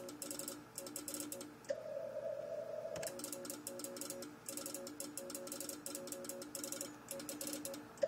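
Morse code (CW) tones from an Icom IC-756PRO III transceiver: keyed dots and dashes at a low pitch, with a fast clicking that follows the keying. About two seconds in, a steady higher tone holds for about a second and a half, then the Morse resumes.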